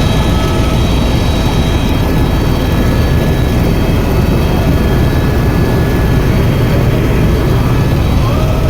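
Helicopter running steadily: the rotor's rapid low chop with the turbine engine's steady high whine over it.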